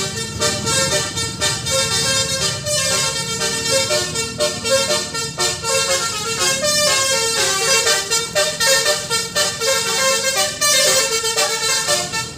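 Bus 'telolet basuri' musical horn playing a fast tune, its notes changing several times a second, starting right at the beginning.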